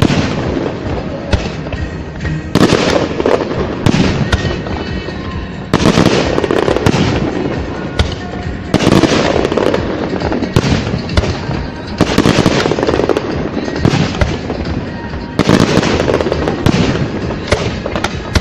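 Fireworks display: aerial shells bursting with sharp, loud bangs every second or two amid a steady stream of smaller pops and crackles, with music playing underneath.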